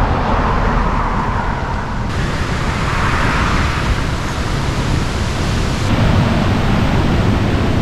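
Steady rushing of the Temperance River pouring through its rock gorge, a loud even roar of water.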